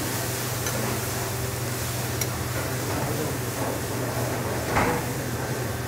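A steady low hum and hiss of kitchen machinery, with a few light clicks and a soft knock about five seconds in as a grilled fish fillet is laid on a plate.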